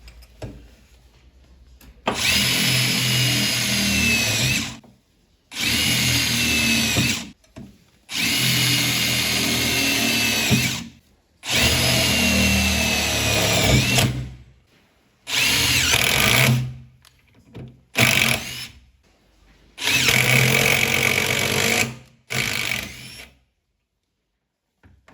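HiKOKI WH36DA/WH36DB cordless impact driver, converted to run on an 18 V battery, running in about eight trigger bursts of one to three seconds each with pauses between them. Each burst is a high motor whine whose pitch sags slightly in the longer runs. It is being test-run after the conversion.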